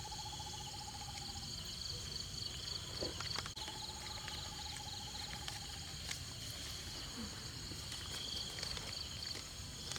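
Outdoor insect chorus: steady high-pitched trilling, crickets or cicadas, throughout. A lower, rapidly pulsing trill stops about a second and a half in and comes back for about two seconds in the middle.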